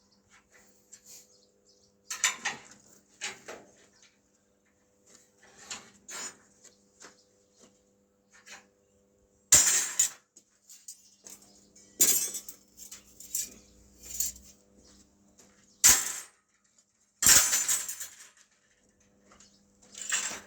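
A series of sharp metallic clacks and clinks at irregular intervals, some ringing briefly, the loudest about halfway through and again near three quarters of the way, over a faint steady hum.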